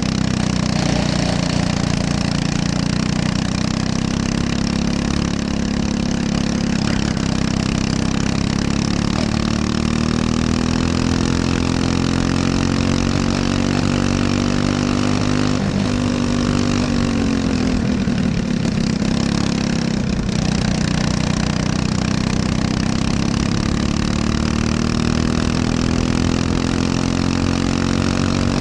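Briggs & Stratton LO206 single-cylinder four-stroke kart engine running at racing speed, heard close on board. Its note climbs slowly along a straight, drops for a corner a little past halfway, then climbs again as the kart accelerates out.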